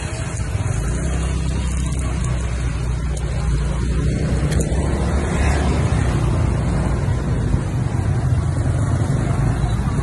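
Street traffic of motor scooters riding past, a steady low noise.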